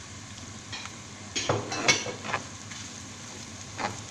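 A spoon scraping and clattering in a frying pan, a quick run of knocks about a third of the way in and one more near the end, as chopped parsley is stirred into fried chicken and onion. Under it the hot pan sizzles faintly.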